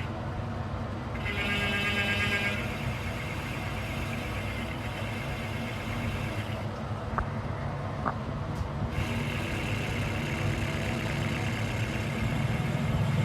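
A motor vehicle engine running steadily with a low rumble, with two sharp clicks about halfway through.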